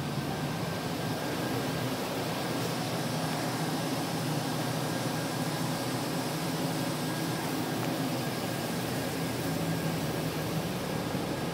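1999 Chevrolet 1500 Z71 pickup's V8 engine idling steadily: an even low hum under a broad hiss.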